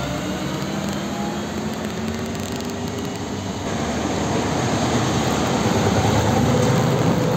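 Diesel trucks driving past on a road: a fuel tanker truck's engine note falls slowly in pitch as it goes by. About halfway through, a louder, closer pass follows from an old tractor unit pulling an empty trailer, its engine and tyres building up to the end.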